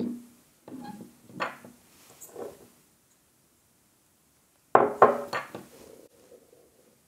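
Plastic parts of a disassembled LED light bulb clicking and knocking together as they are handled and the driver module is pulled out of its housing. A few light knocks come in the first couple of seconds, then a louder cluster about five seconds in.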